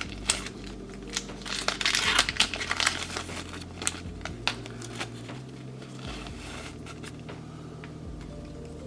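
Crinkling and rustling of a ration tea packet's wrapper being handled and opened, thick for the first four to five seconds, then only a few faint clicks.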